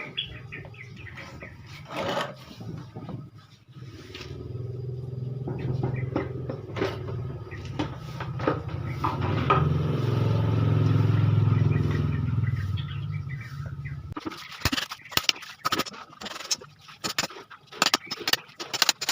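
Chisel work on wood: sharp taps and scrapes, scattered at first and coming thick and fast near the end. In the middle a low engine hum swells to its loudest and fades away, like a vehicle passing.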